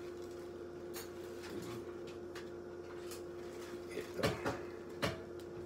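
A few light knocks and clicks of kitchen utensils being handled on a counter: a faint one about a second in, then a small cluster about four seconds in and one more near the end, over a steady low electrical hum.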